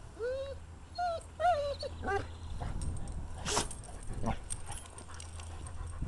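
A basset hound whining: four short high whines in the first two seconds, each rising and then falling in pitch, followed by soft rustling with a brief scuffing burst about three and a half seconds in.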